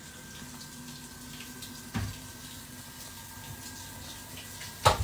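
Faint steady hiss with a thin, high, steady tone running under it, broken by two short knocks, one about two seconds in and a louder one near the end.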